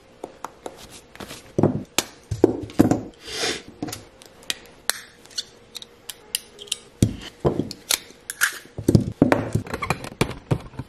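Pocket knife scraping at a small whittled wooden lure body, then pliers working wire onto it: a string of sharp clicks and short scrapes.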